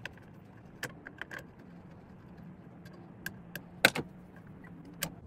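Scattered light clicks and taps of a screwdriver and small parts being handled against a miter saw's housing, the sharpest about four seconds in and another near the end.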